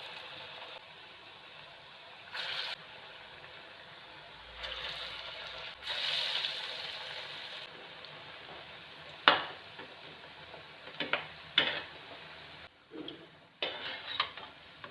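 Chana dal fritters (bara) sizzling as they fry in oil in a pan, the hiss swelling and easing in the first half. From about nine seconds in, several sharp clicks of a utensil against the pan as the fritters are turned.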